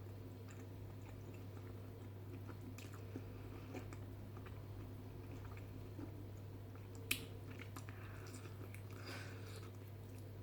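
Faint close-up chewing of a person eating barbecue ribs, with small scattered mouth sounds and one sharp click about seven seconds in, over a steady low hum.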